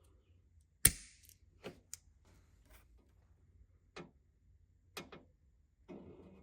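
Wire cutters snipping the old terminals off the tail light wires: one sharp snap about a second in, then several lighter clicks and taps.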